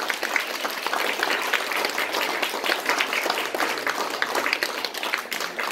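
Audience applauding: many hands clapping at once, a dense, even patter.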